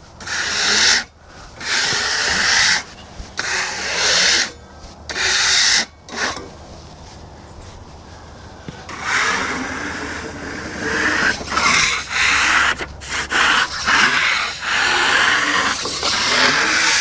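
Repeated scraping or brushing strokes over the surface of a freshly sawn ash slab, about one stroke a second at first, then a short pause, then quicker, more irregular strokes.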